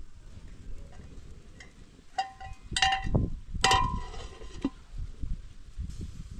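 Aluminium cooking pot and its metal lid clinking together as the lid is set on, a few sharp metallic knocks that each ring briefly, clustered about two to four seconds in.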